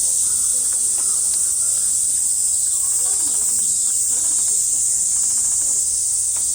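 Insects droning steadily in one continuous high-pitched buzz, with faint distant voices beneath.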